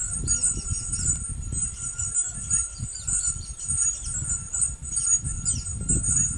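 Bats making rapid, high-pitched chirping squeaks over a steady high trill, with low rumbling noise underneath.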